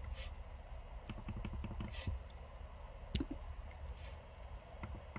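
Faint, irregular clicks and taps at a computer, with one sharper click a little after three seconds in, over a low steady hum.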